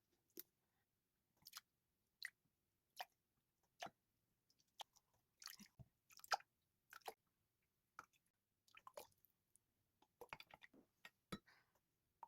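Faint, irregular clicks and crackles, about one or two a second, from food and packaging being handled in a kitchen.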